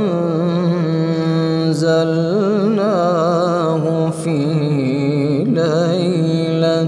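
A man reciting the Quran in a slow melodic chant, holding long notes with wavering, ornamented turns, with a brief break for breath about four seconds in.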